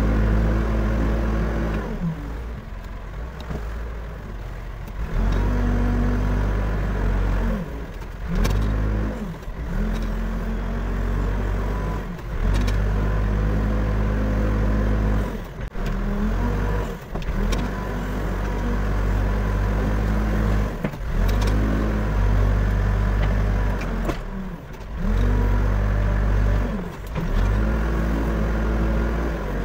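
Backhoe loader's diesel engine working under load, its revs dropping and picking back up about ten times as the machine digs and moves material.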